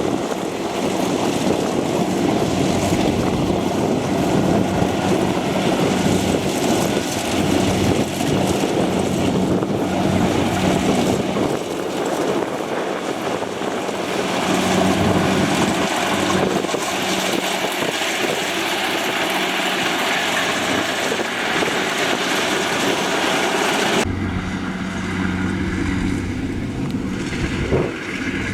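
Engine of a farm harvesting machine running steadily under load, with wind on the microphone. About twenty-four seconds in the sound changes suddenly, with much less hiss afterwards.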